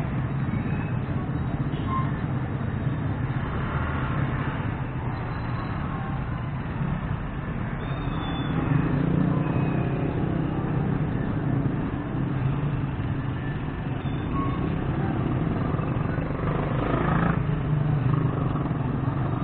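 Steady low rumble of motor traffic running past, swelling a little about halfway through.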